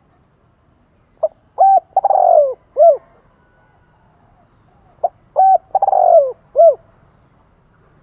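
Spotted dove cooing its song twice, each phrase four coos, the third the longest and falling in pitch.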